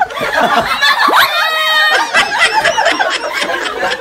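Several people laughing and shrieking at once, with a sharp rising squeal about a second in that turns into a high held cry.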